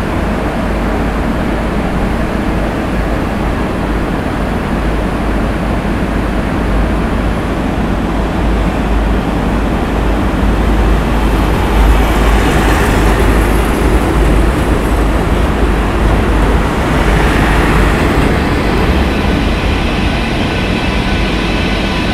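Trains running over a steel railway bridge: a steady rumble of wheels on rails, swelling with added hiss in the middle as a DB Regio train passes close by, beside a red Deutsche Bahn electric locomotive hauling Intercity coaches.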